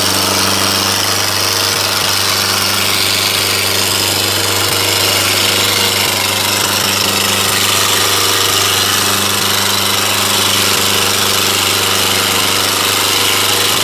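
Sonalika DI 750 III Sikander tractor's diesel engine running hard and steady at full load, with a constant clatter, as it drags a heavy weighted disc implement through sandy soil.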